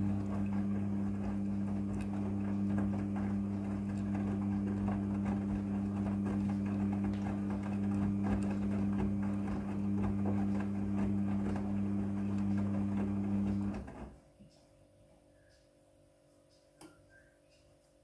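Midea front-loading washing machine drum turning during a wash: a steady motor hum with the clothes tumbling and swishing inside. The drum stops suddenly about fourteen seconds in and the machine goes quiet, a pause in the tumble cycle.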